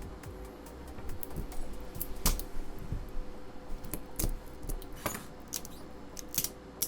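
Irregular clicks, taps and scrapes of hands working at the glued cylindrical LiFePO4 cells of an opened battery pack, trying to pull them apart; the sharpest click comes a little over two seconds in.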